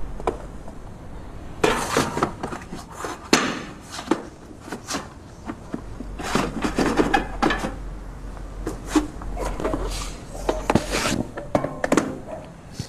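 Books and files being pulled off shelves and handled: irregular thuds and knocks with bursts of paper rustling and pages being leafed through.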